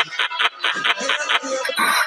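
Music with a fast, even beat of short pulses, several a second.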